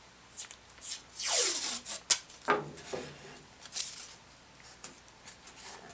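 Blue painter's tape pulled off its roll in a long pull about a second in, followed by shorter pulls and the tape being torn and rubbed down onto a wooden leg blank.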